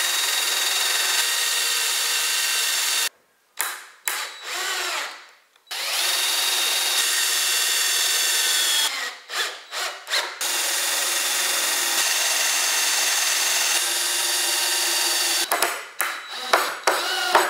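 Cordless drill boring pilot holes into hardwood pallet boards: the motor whines steadily for several seconds at a time, three long runs, broken by short start-stop trigger bursts. The bursts near the end drive a screw into a countersunk pilot hole.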